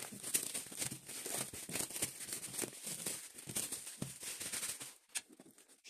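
Clear plastic wrapping crinkling and crackling as it is handled and pulled off a cardboard box, a dense run of quick crackles that stops about five seconds in.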